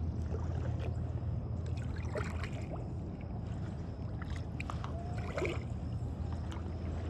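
A kayak on a river: paddle strokes and dripping water against the hull, with scattered small splashes and clicks over a steady low rumble.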